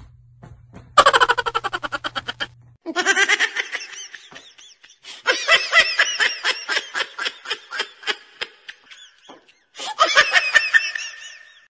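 A person laughing hard in quick bursts, then long peals of high-pitched laughter with short breaks, pausing briefly near the end before starting up again.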